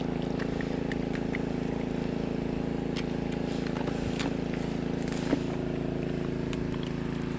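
Farm tractor engine running steadily at a constant speed while driving a water pump that drains a pond.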